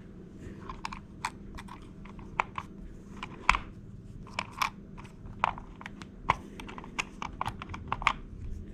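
Irregular light clicks and taps of plastic clock parts, the hands and quartz movement of a wall clock, being handled and worked loose.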